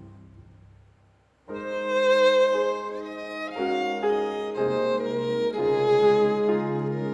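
Music: after a fade to near silence, a violin comes in about a second and a half in, playing slow held notes that change about once a second over a lower accompaniment.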